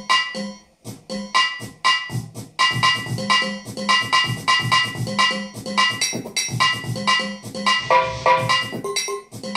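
Prototype pitched sampler/sequencer built on an Axoloti DSP board, played live from its button controller: a looping rhythmic pattern of short pitched percussive samples, several hits a second, dropping out briefly just under a second in.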